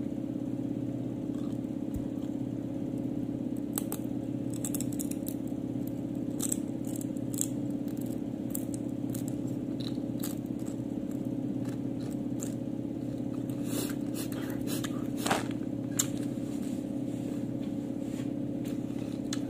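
Doritos tortilla chips being bitten and chewed, with scattered short crisp crunches over a steady low hum.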